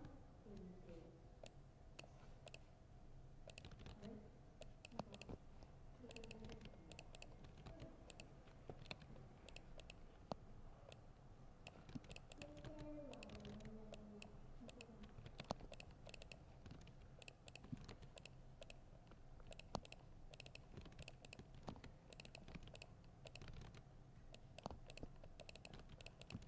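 Typing on a laptop keyboard: quick runs of soft key clicks broken by short pauses.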